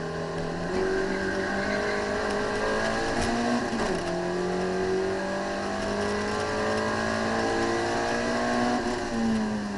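Citroën AX GTI's four-cylinder petrol engine, heard from inside the cabin, pulling hard through the gears on track: the pitch climbs steadily, drops with an upshift about four seconds in, then climbs again, and dips once more near the end.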